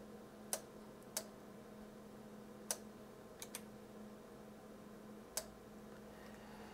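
Faint, scattered sharp clicks, about six at irregular intervals, over a low steady hum; the hum stops at a click about five and a half seconds in.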